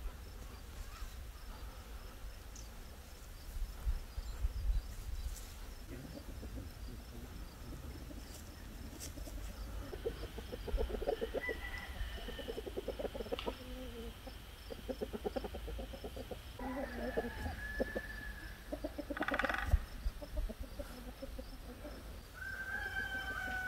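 Domestic chickens clucking in runs of quick, pulsing calls through the middle, with a few higher, drawn-out calls.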